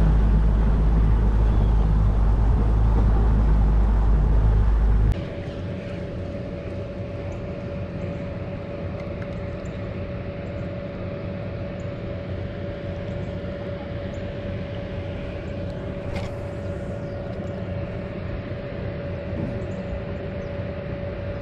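A motor running steadily. For about the first five seconds a loud low rumble dominates, then it cuts off abruptly, leaving a quieter steady hum with a constant mid-pitched whine.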